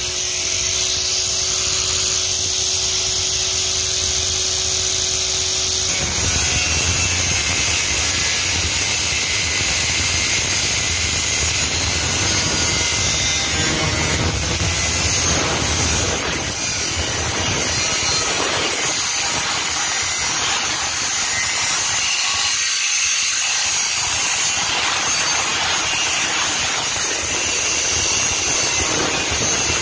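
Angle grinder with a cut-off disc cutting through the thin steel shell of an empty refrigerant cylinder: a loud, steady grinding screech. For about the first six seconds the motor's whine is heard more clearly, before the cut settles into a rougher, denser grind.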